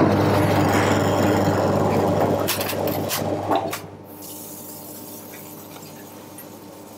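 Steady rushing kitchen noise with a low hum that cuts off abruptly about four seconds in, after a few light clinks, leaving a quieter machinery hum.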